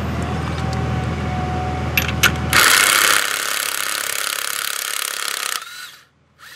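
Cordless impact wrench hammering on the 18 mm motor-mount nut for about three seconds, then spinning down, to break the nut loose and run it off. A steady low hum and a couple of sharp clicks come before it starts.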